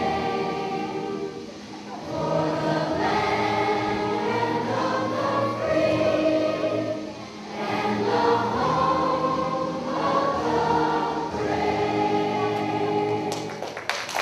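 A children's choir singing a patriotic song together in long phrases. The song ends and applause starts just before the end.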